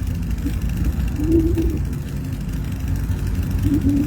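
Wind buffeting the microphone and low rumble from riding a bicycle, steady throughout. A faint wavering tone comes in about a second in and again near the end.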